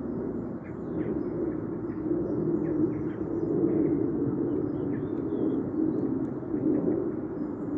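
Outdoor ambience: a steady low rumble with scattered faint bird chirps over it.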